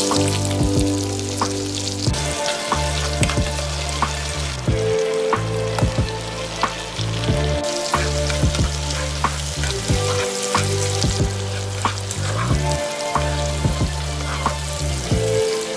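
Sliced onions and mushrooms sizzling as they sauté in hot fat in a frying pan, stirred and turned, with frequent short clicks of the utensils against the pan.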